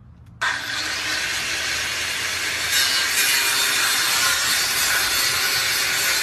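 Power saw cutting through a rifle, switched on abruptly about half a second in and then running steadily with a hissing, grinding cut.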